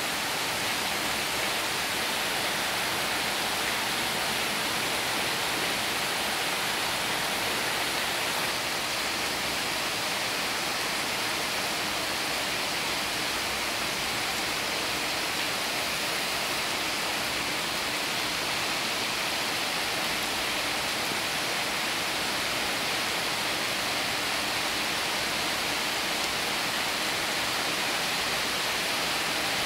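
Heavy rain pouring steadily on corrugated tin roofs and foliage: a dense, even hiss that does not let up.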